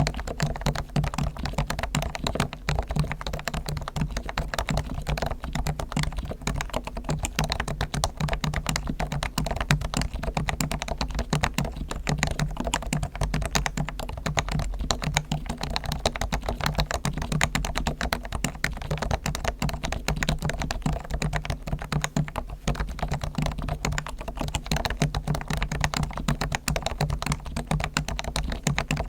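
Fast, continuous typing on a Realforce R1 Topre electrostatic capacitive keyboard, its keystrokes dense and unbroken. Its springs and sliders are fully lubed with Krytox, its stabilizers are tuned and lubed, and its case is dampened with foam.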